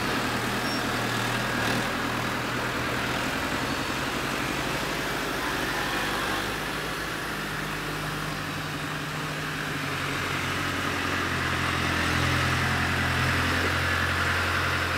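Farm tractor's diesel engine running steadily as it moves a large square straw bale on its front loader. The engine note shifts and grows a little louder about ten seconds in as the tractor comes close.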